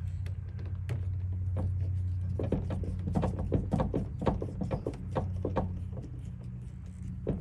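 Irregular small clicks and creaks of a screwdriver forcing a Phillips screw into a plastic push-pin clip on a truck's hood, over a steady low hum.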